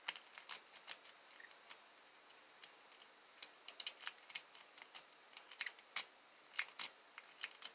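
A hand-made lock pick working the pins inside a lock: irregular small metallic clicks and ticks as the pick is raked and jiggled against the pins.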